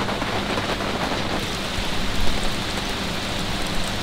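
Steady, gentle rain falling, an even patter of drops on the surfaces around the camp.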